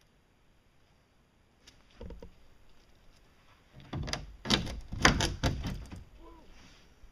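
A quick run of loud knocks and thumps about four seconds in, after a faint thud, as fiberglass boat hull pieces are handled and bumped against each other.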